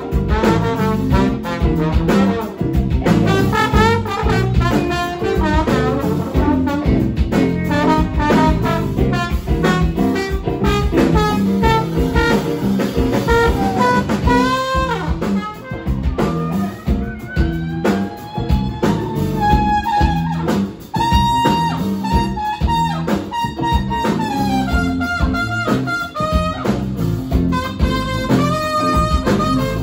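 Live blues band with a horn section of trombone, saxophone and trumpet playing over electric guitars, keyboard and drum kit, the horns carrying the melody, with a long held horn note partway through.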